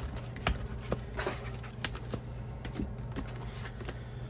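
Scattered light clicks and taps of album packaging being handled, over a steady low hum.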